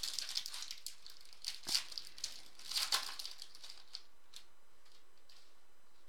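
A foil trading-card pack wrapper crinkling and rustling as it is torn open and the cards are slid out by hand. The crinkles come in irregular bursts for about four seconds, then only a few faint rustles.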